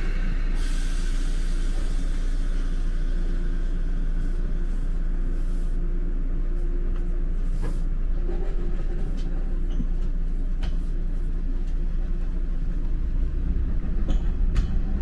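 Interior running noise of a 185 series limited express electric train moving slowly: a steady low rumble with a few sharp clicks, growing a little louder near the end.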